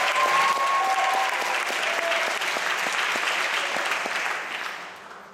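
Audience applauding in a recital hall as the performer comes on stage, the clapping dying away over the last second or so as he sits at the piano.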